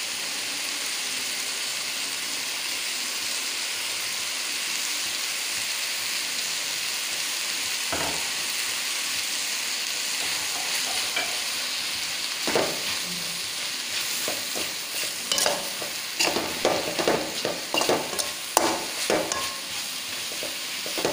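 Cauliflower poriyal sizzling in a metal kadai with a steady frying hiss. From about twelve seconds in, a perforated metal spoon repeatedly scrapes and knocks against the pan as grated coconut is stirred through.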